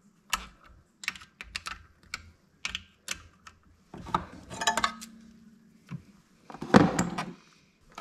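Socket ratchet clicking in short runs as the power valve bolts are snugged down by hand, not torqued. A louder clatter of metal comes about seven seconds in.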